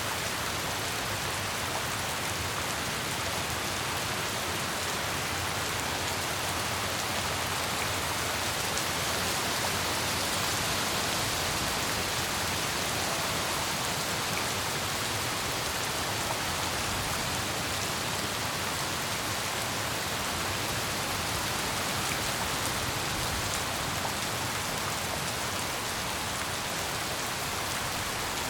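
Steady heavy rainfall, an even hiss of drops hitting surfaces.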